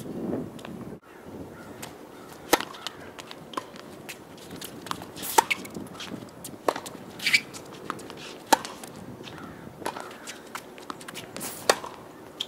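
Tennis rally on a hard court: the ball is struck by rackets and bounces on the court, making sharp cracks about every one to two seconds.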